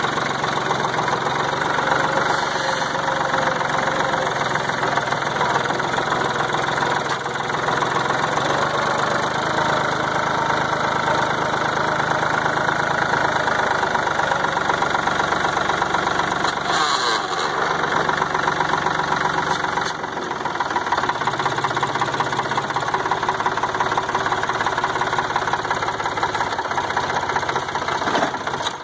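Farm tractor engine running steadily at working speed, close to the microphone. Its note dips and changes briefly about twenty seconds in, as the load or throttle shifts.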